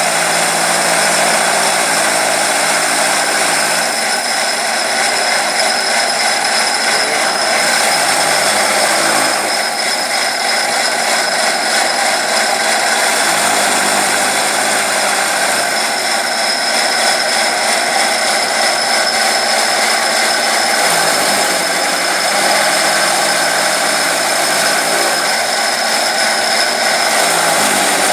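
Chaff cutter running steadily, a loud continuous mechanical noise; its low hum dips and recovers every few seconds.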